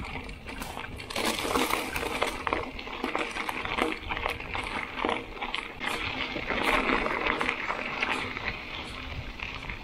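Mountain bike tyres rolling over loose gravel, crunching, with a dense run of small clicks and clinks from the stones, busier from about a second in.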